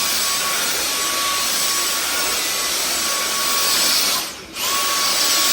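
Dyson DC44 Animal cordless stick vacuum running with a steady whine. It cuts out for a moment about four seconds in and starts up again.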